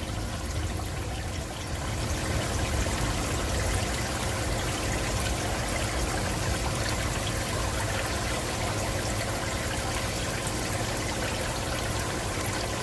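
Water trickling steadily in an aquarium, an even running-water noise that rises slightly about two seconds in.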